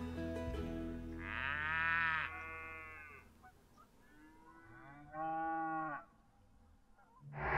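Cattle mooing: two long moos about three seconds apart. A loud rushing noise cuts in just before the end.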